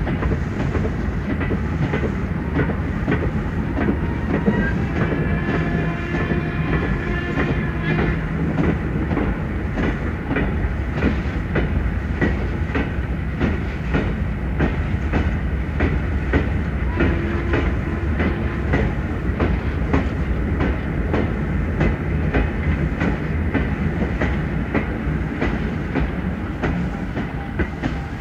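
Railway train running steadily, its wheels clattering over rail joints in a rapid clickety-clack over a low rumble.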